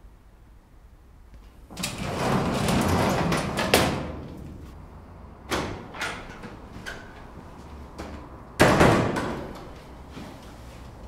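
Doors opening and shutting. There is a long swinging, scraping noise that ends in a sharp knock, then two short latch clicks, and past the halfway point one loud door slam that rings away.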